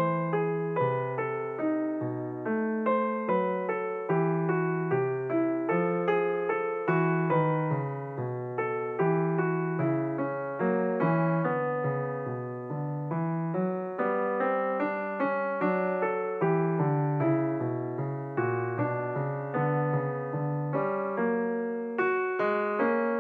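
Background piano music: a gentle melody of struck notes, about two a second, over a steady lower accompaniment.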